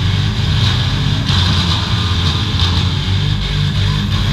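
Several V8 engines of demolition derby cars running and revving loudly at once.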